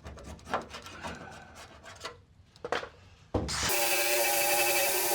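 Irregular scraping and rubbing on the Volkswagen chassis floor pan as old coating is cleaned off. About three and a half seconds in, an electric power tool switches on with a thump and runs at a steady speed.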